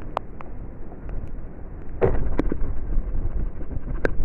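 Wind rumbling on the microphone, with scattered sharp knocks and a louder thump about two seconds in as a wet cast net is hauled in and gathered.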